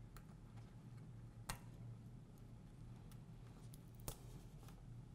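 Near silence over a low steady hum, broken by a few faint clicks of tweezers touching the iPod Touch's frame. Two of the clicks are sharper, about a second and a half and four seconds in.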